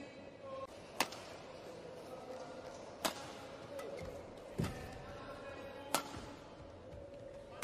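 Badminton rally: three sharp cracks of rackets hitting the shuttlecock, two to three seconds apart, with a low thud of a player's foot landing on the court between the second and third. A steady hum runs underneath.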